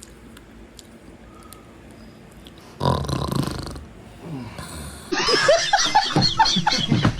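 A loud snore-like burst of about a second comes roughly three seconds in. From about five seconds a loud, jumpy run of vocal sounds follows, rising and falling rapidly in pitch.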